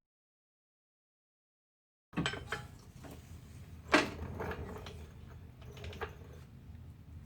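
Silence for about two seconds, then scattered metal clanks and knocks from work on a car's rear suspension, with one sharp knock about four seconds in.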